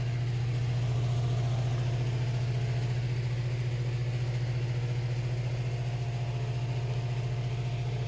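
Greenhouse fan running, a loud steady hum that fills the hoop house.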